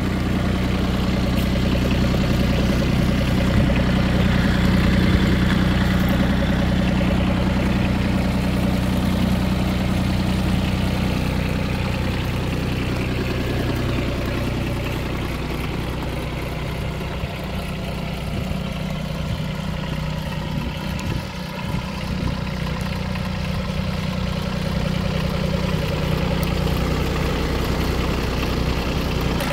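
Hinomoto CX14 compact tractor's diesel engine idling steadily.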